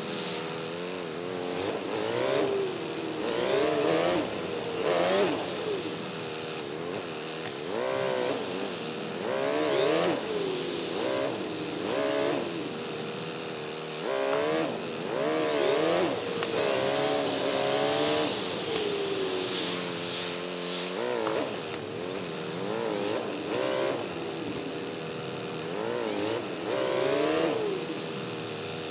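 Triumph Bonneville's parallel-twin engine under way, its pitch repeatedly rising and falling every second or two as the throttle opens and closes.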